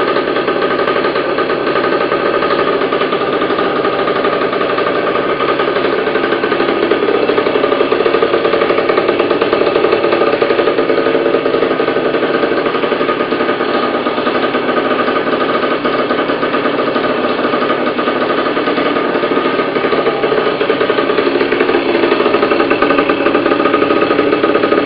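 1979 Kawasaki KX80's two-stroke single-cylinder engine running steadily, then stopping abruptly at the very end.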